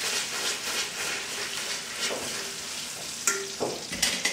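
Caramelised sugar and butter sizzling in a copper pan as a halved lemon is rubbed over the pan's base, the juice hissing on the hot caramel. A few short metallic clinks come near the end.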